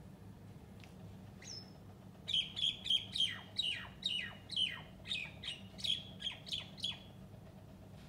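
Common myna calling: a single short call, then about a dozen quick, loud, falling calls at roughly three a second, stopping about a second before the end.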